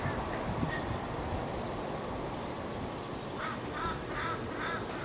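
A bird calling repeatedly: about four short, harsh calls in quick succession, roughly two a second, starting a little past the middle, over a steady low background rumble.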